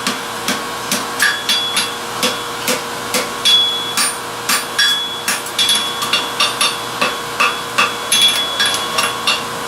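Hand hammer striking hot steel on an anvil at about two to three blows a second, the anvil ringing steadily between blows, as a welded ring is forged toward a square.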